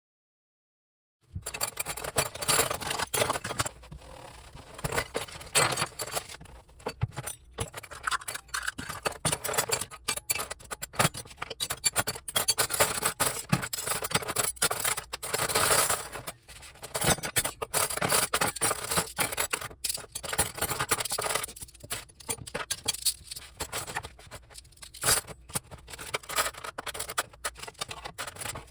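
Dishes and utensils being handled in a kitchen: a busy run of scrapes, clicks and clinks of glass and metal, starting about a second in.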